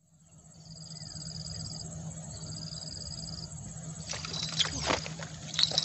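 Outdoor rural ambience: a steady low hum under a steady high-pitched whine, with two short high trills in the first three seconds and a cluster of sharp clicks and taps about four to five seconds in.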